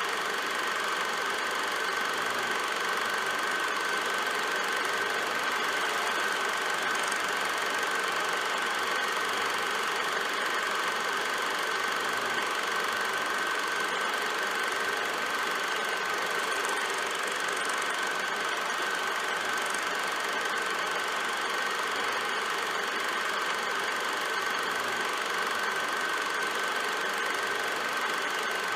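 Film projector running: a steady mechanical whir and clatter with a constant whine.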